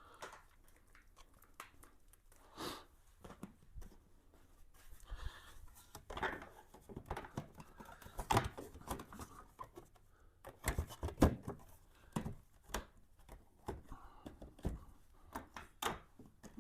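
Scattered handling noises: light clicks, knocks and rustling, with a few sharper knocks about halfway through and a quick cluster a little later.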